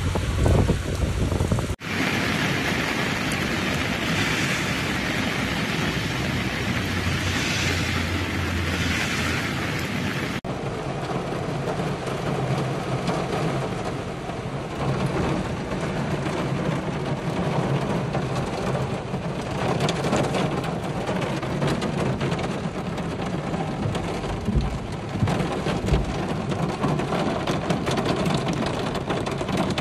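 Heavy cyclone rain pouring down steadily, its sound changing abruptly twice, about two and ten seconds in.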